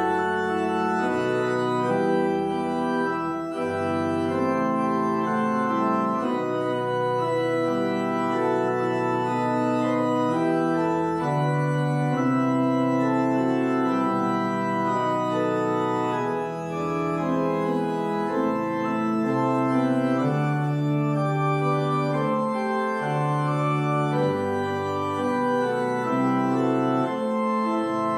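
Church organ playing the postlude: sustained full chords that change every second or so over held bass notes.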